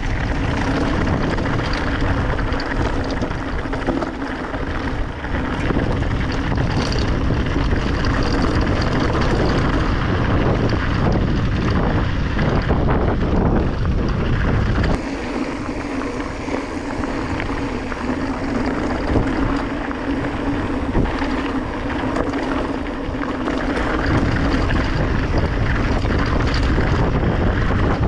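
Heavy wind buffeting the microphone during a fast downhill bike ride, with a steady rumble underneath. The sound changes abruptly about halfway through, the deep rumble dropping away, and it comes back near the end.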